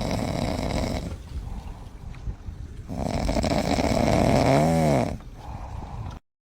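Hippopotamus snoring in long, noisy breaths. The loudest breath, about three seconds in, ends in a low pitched sound that rises and falls. The sound cuts off abruptly just before the end.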